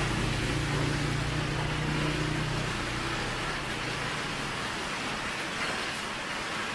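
Hard, steady rain pounding on a tin roof and splashing on the flooded street. A vehicle passes on the wet road over the first few seconds, its low engine hum fading out about three seconds in.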